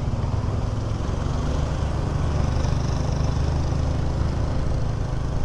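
Honda Click 125 scooter's single-cylinder engine running steadily as it is ridden, a low even hum with road and wind noise over it.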